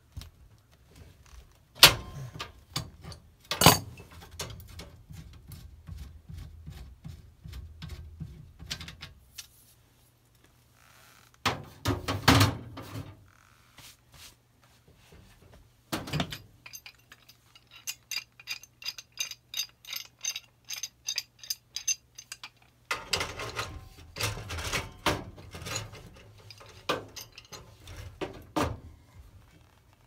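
Metal tools knocking, scraping and clinking on a gas furnace's sheet-metal cabinet and gas piping during disassembly, with a few sharp knocks. In the middle comes several seconds of rapid, even clicking.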